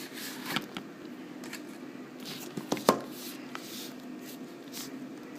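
Hands opening and handling a Samsung Galaxy S3's retail box: soft scraping and rustling of the packaging with scattered clicks and taps, the sharpest about three seconds in.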